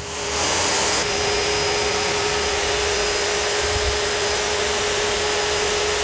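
Progen 9720 HG electric concrete core drill switched on and running free with its core bit spinning in the air, not cutting. The motor runs at a steady speed: an even, loud hum with one steady tone in it.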